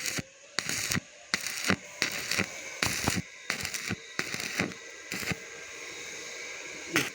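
Stick-welding arc crackling in short bursts as the electrode is struck and broken off again, about eight times. There is a faint steady hum underneath, and the bursts fall away in the last couple of seconds.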